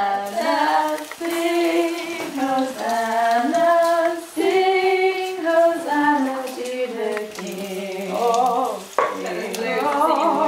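A woman singing a tune without clear words, in long held notes that step up and down, over a steady sizzle of food frying in a pan.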